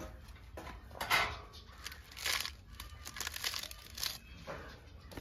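Fresh cabbage leaves being torn and crumpled by hand: a run of short crinkly rustles and rips, the loudest about a second in and again just after two seconds.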